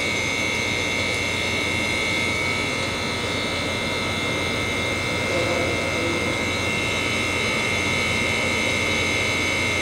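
A machine running steadily: an even drone with a high, constant whine over it.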